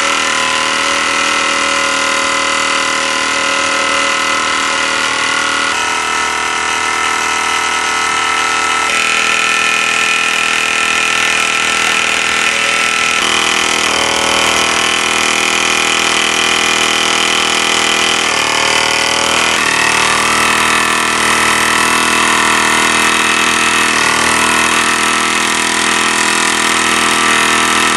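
Mamod Minor 1 disc-crank toy steam engine running fast on live steam: its small oscillating cylinder gives a steady, pitched buzz of rapid exhaust beats over a hiss of steam. The pitch shifts slightly a few times.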